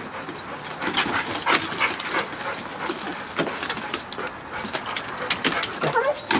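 Blue-nose pit bull whining excitedly at a balloon, with a rising-and-falling whine near the end and scattered clicks and scuffs throughout.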